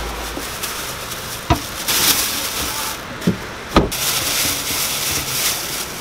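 Thin plastic bags rustling and crinkling as gloved hands pull peeled onions out of them, with three short sharp knocks in the middle of the clip.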